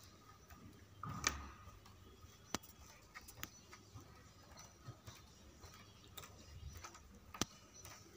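Faint, scattered sharp clicks and taps over quiet room tone, with a louder knock about a second in.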